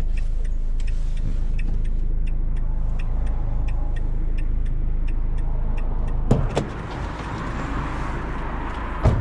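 A vehicle's engine idling with the indicator ticking about twice a second. About six seconds in, a door clunks open and a wider wind-like rush comes in, and another knock follows near the end.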